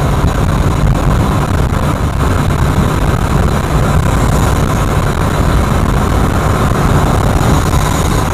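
Steady low drone of a Scania coach cruising at highway speed, heard inside the cabin: engine and road noise.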